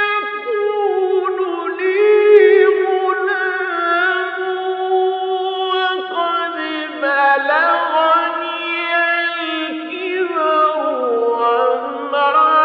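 A male Quran reciter chanting in the melodic mujawwad style: long held notes ornamented with sliding melismatic runs, in one unbroken sung line.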